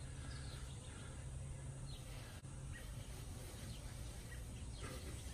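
Quiet backyard ambience: a low steady rumble with a few faint bird chirps and one soft click about two and a half seconds in.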